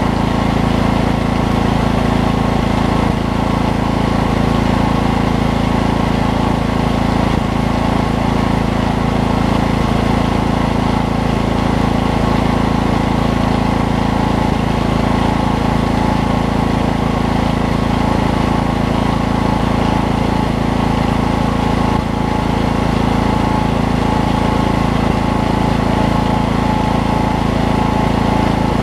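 Briggs & Stratton Vanguard engine of a Coleman Pro 5000 portable generator running steadily at constant speed with nothing plugged in.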